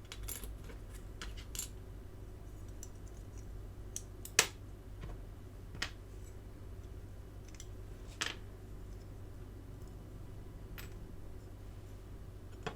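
Occasional light clicks and taps of small diecast-model parts, metal and plastic, being handled and set down, over a low steady hum. The sharpest tap comes about four and a half seconds in.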